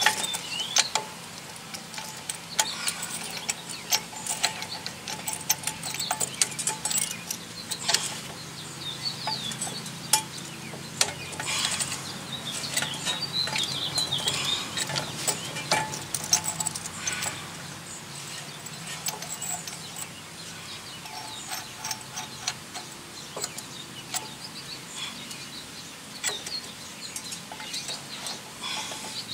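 Brake caliper wind-back tool being worked on a rear disc brake caliper piston: irregular metallic clicks, knocks and ratcheting as the tool is fitted and turned.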